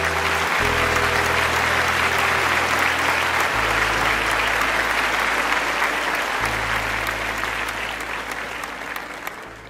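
Audience applauding steadily, fading away over the last few seconds, over background music of low held notes that change every few seconds.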